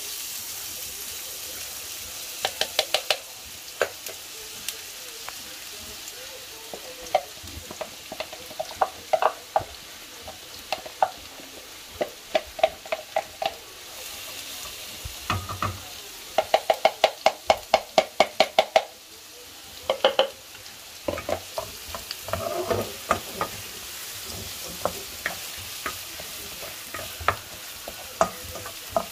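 Chopped onions sizzling in hot oil in a non-stick wok, a steady frying hiss. Runs of quick knocks and scrapes against the wok as they are stirred with a wooden spatula.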